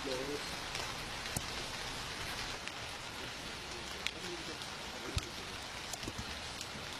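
Steady rain falling and hissing on the street, with a few sharp ticks of drops.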